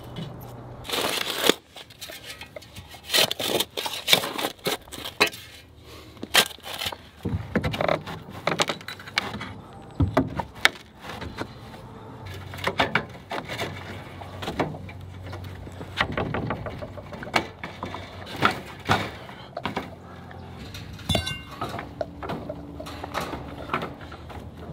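Hammer taps and the clinking and rattling of wire fencing being handled and fastened to a wooden chicken coop's base, irregular knocks and metallic clicks throughout.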